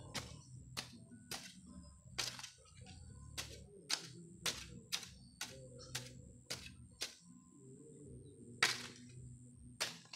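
A hoe blade chopping into loose soil over and over, in irregular sharp strikes about one to two a second, with a pause of a second or so near the end.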